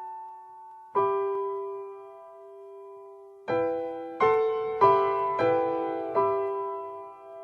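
Slow, gentle piano music: a single sustained note, then a short run of notes struck about every half second, each ringing and fading away.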